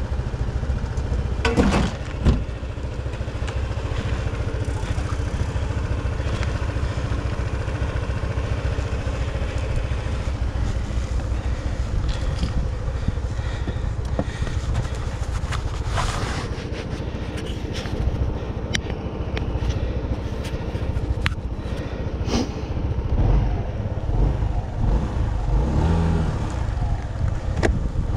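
Engine of a road vehicle, likely a motorcycle, running steadily on the move with scattered clicks and knocks. In the last few seconds it revs up, rising in pitch as it accelerates.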